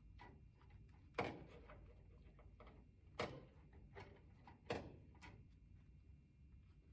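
Faint clicks and knocks of hands and tools working a light switch out of its wall box: three sharper knocks a second or two apart, with lighter ticks between, against near silence.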